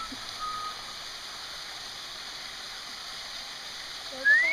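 Steady hiss of running water, with a few faint short chirps at the start and one loud, short rising whistle near the end.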